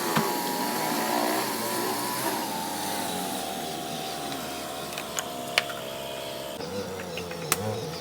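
A power tool's motor running steadily, its pitch sagging slightly over several seconds, with a few sharp taps in the second half.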